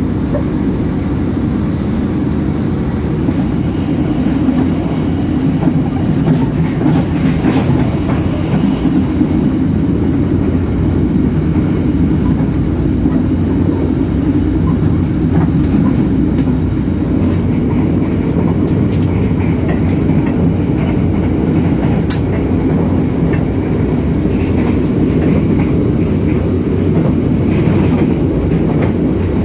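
Passenger train running, heard from inside an economy-class carriage: a steady low rumble of wheels on rail, with a few faint sharp clicks.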